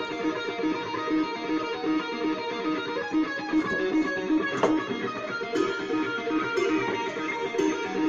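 Music with a quickly repeating plucked-note figure, played through a small 2–8 watt Bluetooth speaker set on a metal DVD tin that is meant to carry and boost the bass.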